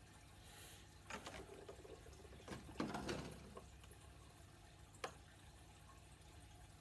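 Quiet room with a steady low hum. Bakugan Battle Planet trading cards are being handled: a couple of brief soft rustles, the louder about three seconds in, then a single click about five seconds in.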